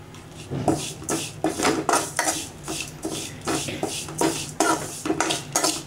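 Steel ladle stirring dry rolled oats in a stainless steel pan, with rustling and scraping strokes against the metal about two to three times a second, starting about half a second in: the oats are being dry-roasted before grinding.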